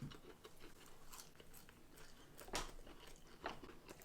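A person chewing fried food with their mouth near the microphone, faint, with a few soft crunchy bites; the clearest crunch comes about two and a half seconds in.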